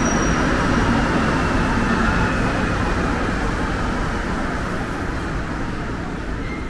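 Rubber-tyred metro train running through the station, its steady rumble slowly fading.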